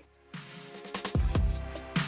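Background music with an electronic beat: deep kick drums, hi-hat ticks and sustained chords.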